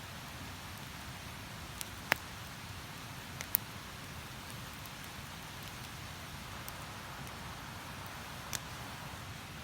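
Wood campfire crackling, with a few sharp pops, over the steady rush of river water.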